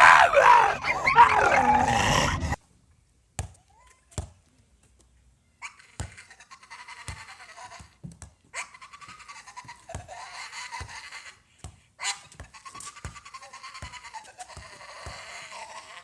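A pet's vocal sounds: a loud call that wavers in pitch and cuts off sharply a couple of seconds in. After a pause it gives way to fainter, repeated breathy sounds with scattered clicks.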